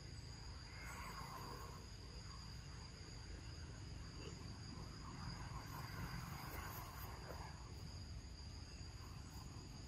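Insects chirring in a steady, high-pitched drone, over a low outdoor rumble.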